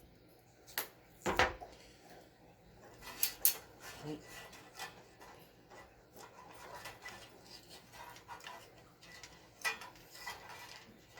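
Hands working on car radio wiring: scattered small clicks, taps and rustling of wires and hand tools, with a couple of sharper knocks in the first few seconds.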